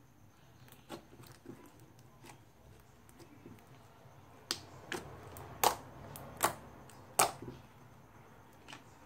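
Homemade glue slime squished and pressed flat by hand, giving sharp pops and clicks as trapped air bursts out of it. A few soft clicks come first, then five loud pops in quick succession past the middle.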